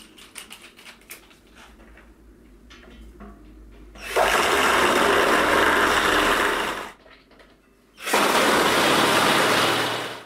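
Cordless drill driver running in two long bursts, about three seconds and then about two seconds, driving screws through a metal table-leg bracket into a wooden tabletop. Light clicks and taps before the first burst.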